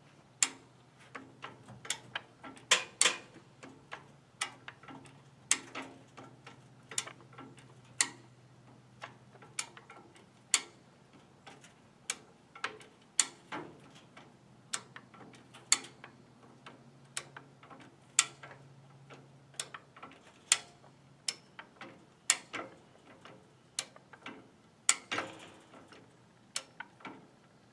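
Handyman high-lift jack being worked by its lever, its climbing pins clicking in and out on the steel bar as it pulls a riding mower up onto a trailer. The clicks come about one or two a second, often in close pairs.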